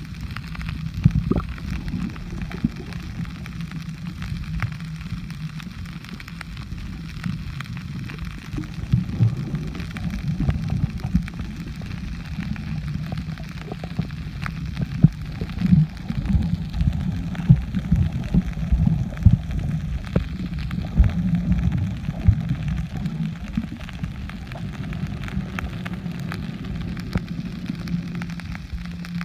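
Underwater sound picked up by a submerged camera: a muffled low rumble of moving water with many irregular crackles and knocks.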